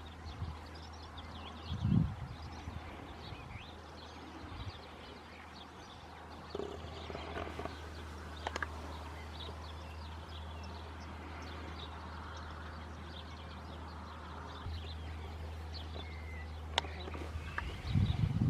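Outdoor rural background of small birds chirping over a steady low hum. A brief low thump comes about two seconds in, and a louder low rumble starts near the end.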